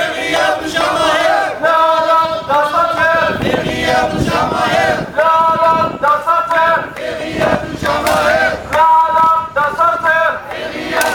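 Small crowd of protesters chanting a slogan in unison, a short phrase repeated over and over in a steady rhythm.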